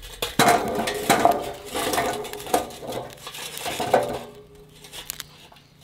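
Hot charcoal lumps poured into a barbecue, clattering and scraping against each other and the metal. The clatter lasts about four seconds, then dies away to a few scattered clinks.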